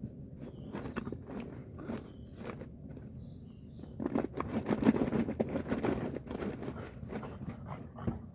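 Crunching and scraping handling noises with scattered clicks, growing busier and louder from about four seconds in.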